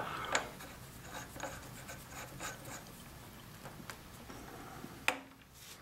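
Faint handling sounds from the lathe tailstock being set by hand before drilling: scattered soft clicks and rubbing, with a sharp click about five seconds in.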